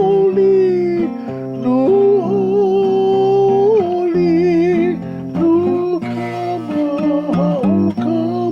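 A Hawaiian hymn (himeni) sung with acoustic guitar accompaniment. The voice holds long notes with vibrato over strummed chords.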